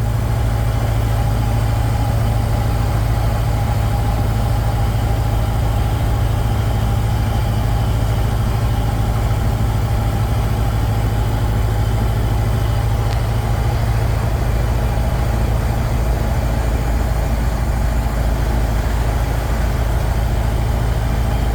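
1928 Ford Model A's four-cylinder engine running steadily under load as the pickup climbs slowly uphill, close to needing a downshift.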